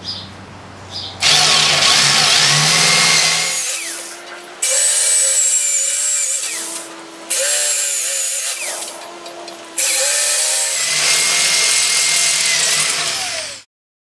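Power drill with a step drill bit cutting through a steel motor plate, enlarging pilot holes to 3/8 inch. The drill runs in four separate spells of a couple of seconds each, with a high metallic whine over the grinding of the cut, and short pauses between.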